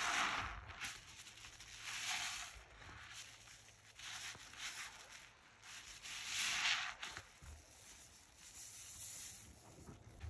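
Soaked sponge squeezed by gloved hands in thick soapy foam: wet squelches with crackling, fizzing foam, several squeezes a couple of seconds apart, the loudest near the start and about two-thirds through.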